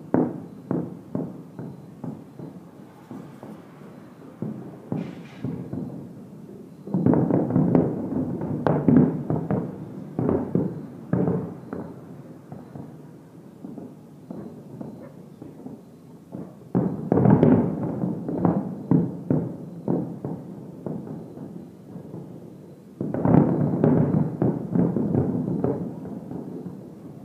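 Fireworks display: rapid, dull bangs that bunch into three dense barrages, each starting suddenly, with scattered single bangs between them.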